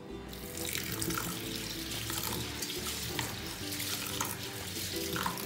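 Tap water running into a stainless steel bowl of soaked sticky rice in a sink, starting about a third of a second in, with hands rubbing and swishing the grains: the rice being washed in changes of water.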